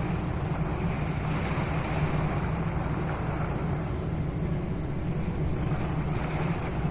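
Steady rushing of a wind-driven rainstorm heard from inside an RV, with a constant low rumble underneath.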